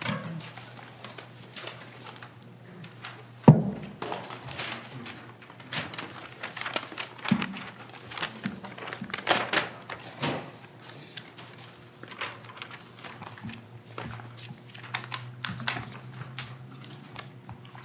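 Sheets of paper rustling and being shuffled close to a desk microphone, with scattered light knocks on the desk. A single sharp thump about three and a half seconds in is the loudest sound, over a steady low hum.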